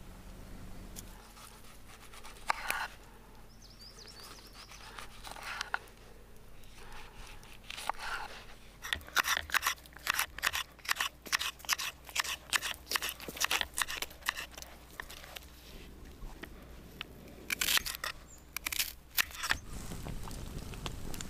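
Kitchen knife slicing a red pepper and tomatoes on a wooden cutting board: a quick run of cuts, about three a second.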